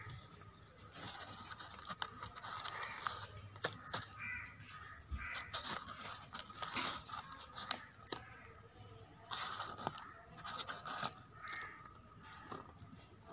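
Hands rustling a woven plastic grow sack and picking horse gram greens from the soil, with many small crackles and clicks. A short high chirp repeats about twice a second in the background, among other bird calls.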